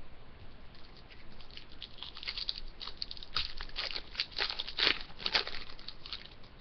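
Hockey card pack's foil wrapper crinkling and tearing as it is ripped open, a run of sharp crackles that is loudest a little past the middle.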